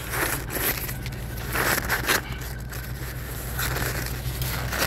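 Irregular rustling, crinkling and scraping of things being handled close to the microphone, in several short bursts, over a steady low hum.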